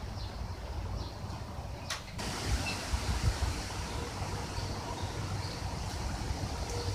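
Steady low rumble and hiss of outdoor background noise, with one sharp knock about two seconds in as an aluminium extension ladder is mounted and climbed.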